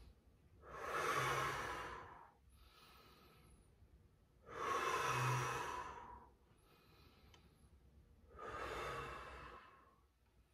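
A person breathing deeply and audibly: three long exhales about four seconds apart, each lasting about a second and a half, with fainter breaths in between.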